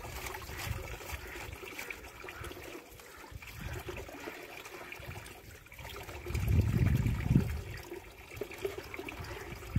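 Water trickling and splashing as it is scattered by hand from a bucket into a shallow, polythene-lined water pit. A louder low rumble lasts about a second, a little past the middle.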